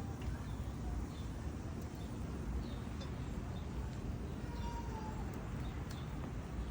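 Wood fire crackling, with a few sharp pops over a steady low rumble.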